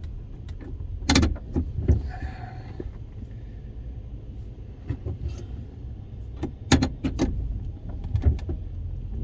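Vehicle engine running with a steady low rumble, and several sharp clicks and knocks inside the cab: a pair about a second in, a quick cluster of three near seven seconds, and one more after eight seconds.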